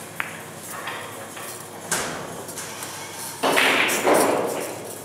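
Pool balls still rolling after a break: a light click of balls touching, a louder knock about two seconds in, then about a second of loud scraping noise.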